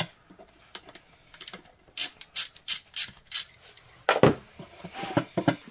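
Sharp clicks and scraping of hand tools and parts being worked in a car's engine bay: a run of clicks about three a second midway, and a louder knock about four seconds in.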